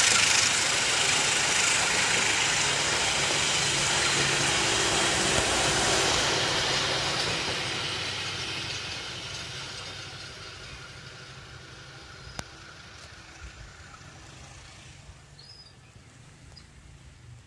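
Argo Wilis passenger train's coaches running past on the rails: a loud, steady rush of wheel-on-rail noise that fades away from about six seconds in as the train pulls off into the distance. A single sharp click comes about twelve seconds in.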